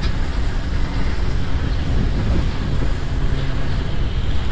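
Wind rumbling on the microphone of a moving bicycle over steady city street traffic noise.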